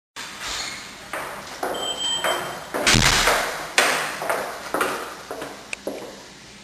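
Footsteps on a hard floor: sharp echoing knocks about two a second that start abruptly. The loudest, about three seconds in, has a deep thump.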